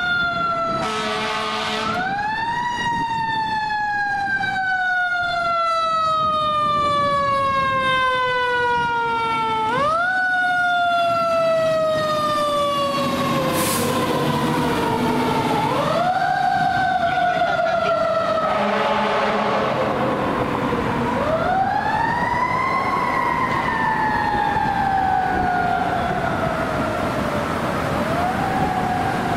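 Fire engine siren wailing as the engine responds. Each wail climbs quickly and then slides slowly down over several seconds, about five times, with engine rumble underneath.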